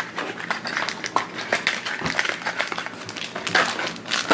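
Hands handling a small cardboard toy box and a crinkly foil blind-bag wrapper, giving a run of small crackles, rustles and clicks.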